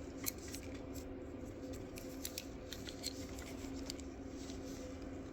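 Scattered small clicks and scrapes of hands working at a van's rear light wiring and connectors, over a steady low hum.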